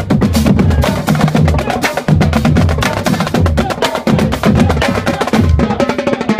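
School marching drumline playing a fast cadence: dense, rapid stick strokes on marching tenor drums over low bass drum notes at several different pitches.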